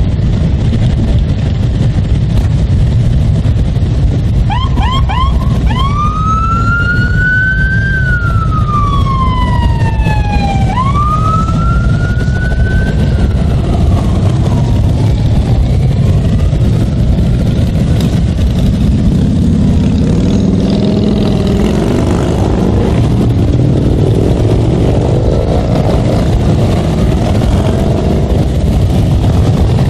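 Motorcycle engines rumble steadily at low speed. About four to five seconds in, an emergency-vehicle siren gives three short chirps, then two slow rising-and-falling wails that fade out a few seconds later. Later on, engines rise and fall in pitch as bikes pull away.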